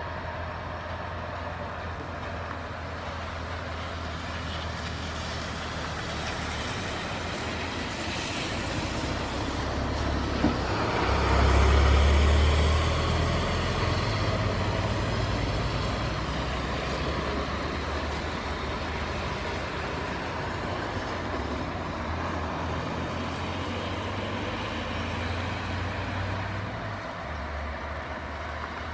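Embraer 195-E2 airliner's Pratt & Whitney PW1900G geared turbofan engines running at taxi power as the jet taxis past. The sound swells to its loudest about eleven to fourteen seconds in, then eases off, with a brief click just before the peak.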